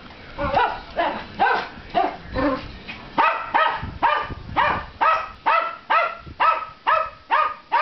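Poodle barking for treats: short, high barks in a quick, steady run of about two a second.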